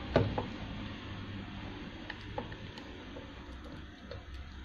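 Scattered small clicks and taps of fingers handling a Toyota 6602 sewing machine's drive belt and motor pulley, the loudest just at the start, over a low steady hum.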